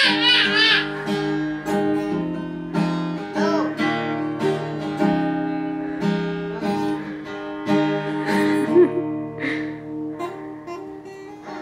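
Acoustic guitar being strummed, chords ringing one after another. A baby's high voice squeals briefly right at the start and again a few times later.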